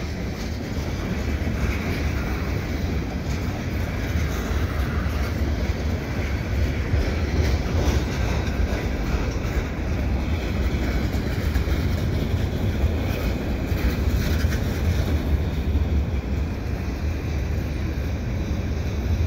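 Freight train cars rolling past: a steady rumble of steel wheels on rail from a string of tank cars and boxcars.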